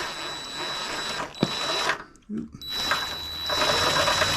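Small cordless power driver running the valve cover bolts in on a snowblower engine, with a steady motor whine. It runs for about two seconds, stops briefly, then starts again on the next bolt.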